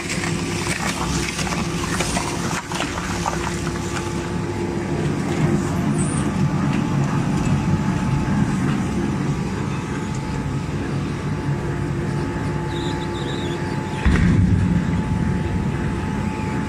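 Industrial twin-shaft shredder running, its hooked cutter discs chewing through a large tractor tire: a steady mechanical drone with a constant hum and grinding noise, getting louder a few seconds before the end.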